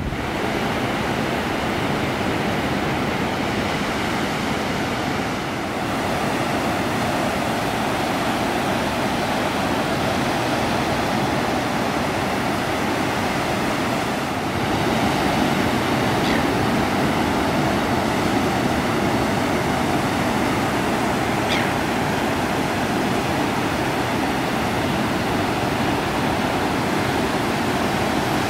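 Ocean surf breaking on a beach: a steady, continuous wash of waves.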